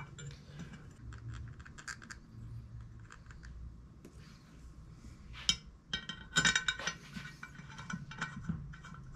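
Small metal parts clinking and tapping as clutch bolts and hardware are handled, with a louder flurry of clinks about six and a half seconds in.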